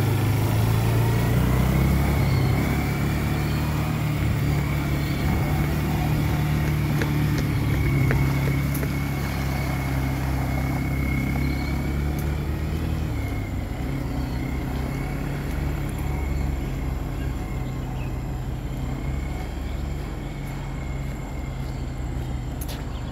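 A small ATV engine runs steadily as the quad pulls away and drives off. It grows a little quieter past the halfway mark as it moves away, and a thin high whine runs alongside the engine in the first half.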